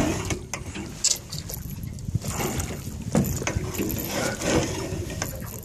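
Water splashing and sloshing at the side of a small aluminium boat as a landing net is worked through it, with a few sharp knocks of gear against the boat.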